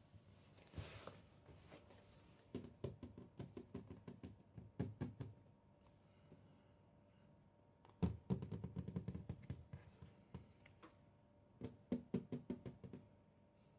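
Several runs of quick, light knocking or tapping, the loudest beginning about eight seconds in.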